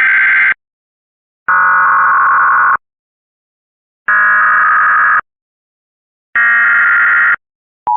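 Emergency Alert System SAME header data bursts: four harsh, buzzy digital bursts about a second long, about a second apart, marking the start of a new EAS activation. The steady two-tone attention signal begins at the very end.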